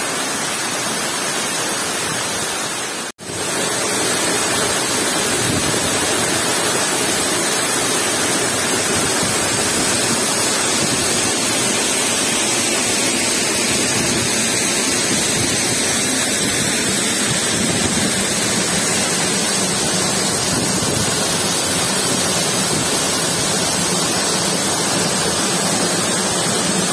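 Waterfall pouring down a rock face: a steady rush of falling water. It cuts out for an instant about three seconds in.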